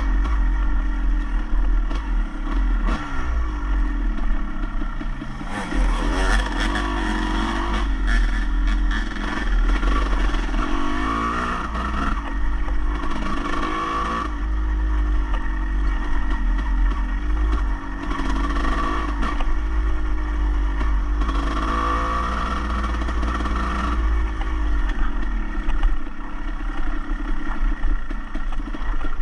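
A vehicle's engine being driven hard, its pitch rising and falling every few seconds as the throttle is worked, over a steady heavy low rumble.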